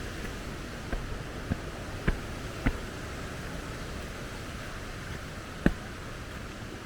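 Steady rush of a mountain stream running full after overnight rain. Over it come sharp taps: four evenly spaced ones about a second in, and one louder one near the end.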